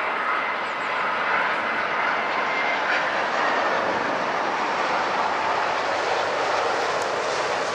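Jet engines of a twin-engine widebody airliner landing, a steady, even jet noise with a faint whine as it passes low over the runway.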